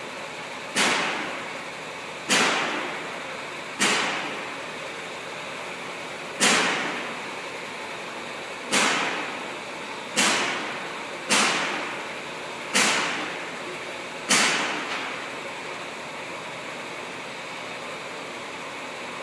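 Compressed air hissing out of a pneumatic transfer press in sudden bursts: nine sharp hisses a second or two apart, each fading within about a second, then only a steady background hiss for the last few seconds.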